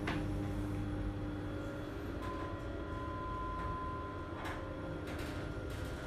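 Kone MonoSpace machine-room-less traction lift running: the lift doors slide shut over a steady low hum, with a few clicks and a steady high tone lasting about two seconds in the middle.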